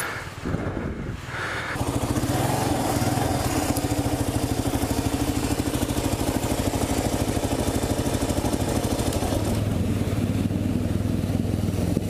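Kawasaki KLR650's single-cylinder engine idling steadily with an even, rapid pulse. The idle settles in about two seconds in, and its low note grows a little stronger near the end.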